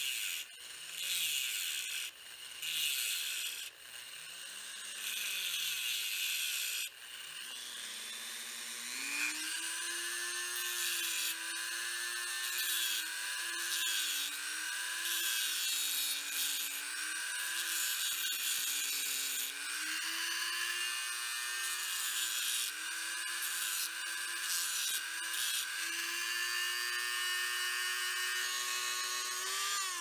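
Handheld Craftsman variable-speed rotary tool with a small cut-off wheel cutting through a brass pen tube. It grinds in short bursts for the first several seconds, then runs as a steady whine whose pitch dips and rises.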